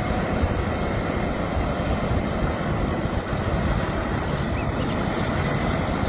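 Volvo car-carrier truck's diesel engine running as the truck drives slowly, a steady, even engine and road noise with most of its weight in the low end.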